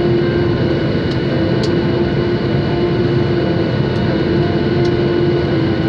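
Boeing 737-800's CFM56-7B turbofan engines and rushing air heard from inside the cabin on approach: a loud, steady rumble and hiss with a held engine whine.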